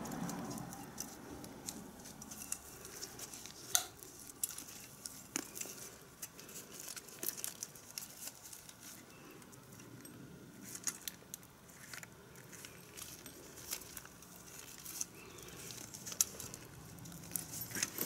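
Faint scattered clicks, taps and rustles of gloved hands handling a stainless steel exhaust connector sleeve and its clamp while smearing exhaust paste inside it.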